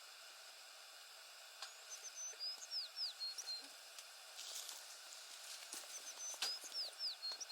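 A songbird singing faintly, the same short phrase twice: a few high clear whistles followed by two quick falling notes. Behind it is a quiet outdoor background with a few faint clicks.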